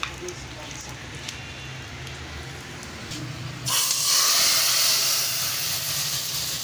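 Hot oil with whole coriander and cumin seeds (a tadka) poured from an iron kadhai into a pot of kadhi: a sudden loud sizzle about two-thirds of the way in, which goes on as a steady hiss and slowly eases. Before it, only a low hum.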